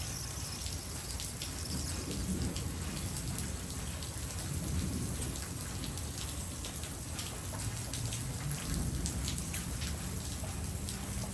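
Steady rain falling during a thunderstorm, with a low rumble of thunder underneath.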